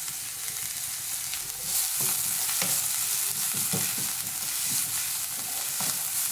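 Chopped spring onion whites, garlic and green chilli sizzling in hot oil in a nonstick pan over a high flame, stirred with a wooden spatula that scrapes and taps against the pan. The sizzle grows louder about two seconds in, when the stirring begins.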